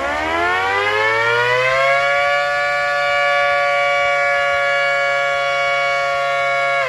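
Small model siren (CB Siren Productions Model 2), its new motor run on an 18-volt drill battery, winding up over about two seconds to a loud, steady multi-tone wail and starting to wind down right at the end.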